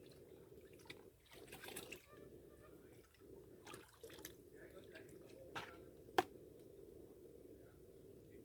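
Faint splashing and dripping as soaked herb stalks are lifted and sorted in a basin of water, with a sharp click about six seconds in, over a steady low hum.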